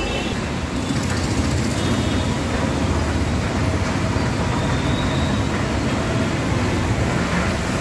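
Traffic driving through a flooded street: a steady rumble of engines mixed with the wash of water pushed aside by the wheels.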